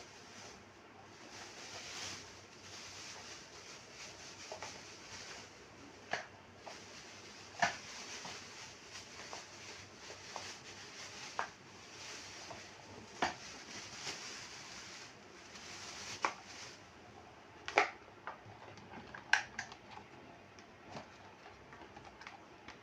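Handling sounds while unboxing and assembling a Matsunichi FS-328 A8 standing fan: an irregular rustle of packaging, with scattered clicks and knocks of plastic fan parts. The loudest knocks come about three quarters of the way through.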